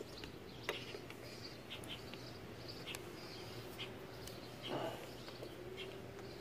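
Faint outdoor background with small birds chirping, a few light clicks, and a brief low sound about three-quarters of the way through.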